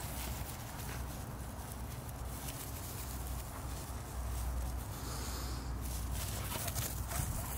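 A Siberian husky and a Belgian Malinois puppy romping together on grass: paws scuffling and patting on the lawn over a steady low rumble.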